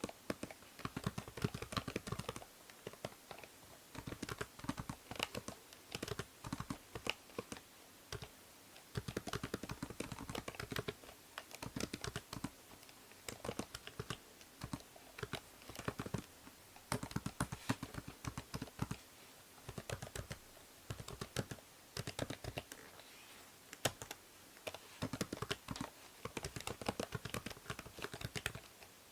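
Computer keyboard typing: bursts of rapid keystroke clicks a few seconds long with short pauses between them. A faint steady low hum sits underneath, the noise of the binaural microphone.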